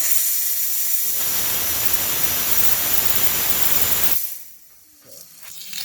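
Compressed shop air hissing as it escapes from a 6.0-litre diesel's high-pressure oil system during an air leak test. The hiss grows fuller about a second in and cuts off about four seconds in. The escaping air is the sign of the internal high-pressure oil leak that keeps the engine from starting.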